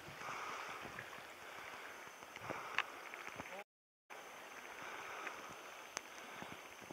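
River current running steadily, with a few sharp clicks. The sound cuts out completely for about half a second near the middle.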